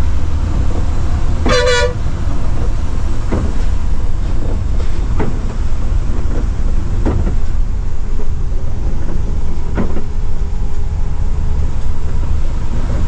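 Steady low drone of a Scania multi-axle coach running at speed on a wet road, heard from inside the driver's cab. About one and a half seconds in, a horn sounds once for about half a second.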